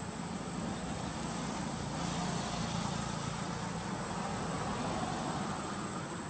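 Low rumble of a distant engine that swells up and then eases off, over a steady thin high-pitched whine.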